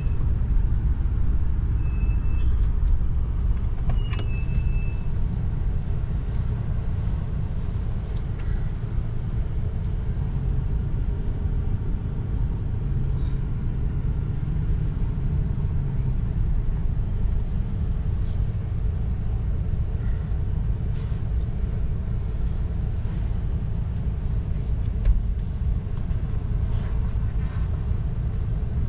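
Steady low rumble of a 31-foot RV's engine and road noise, heard from inside the cab as it creeps along in city traffic. A few brief, thin high squeaks come about two to five seconds in.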